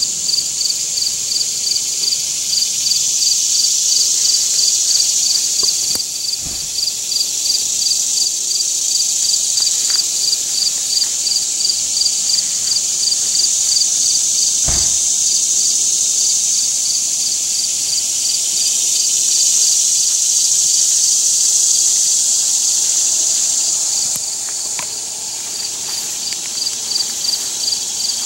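Chorus of insects chirping: a steady high buzz with a pulsing chirp repeating about four times a second.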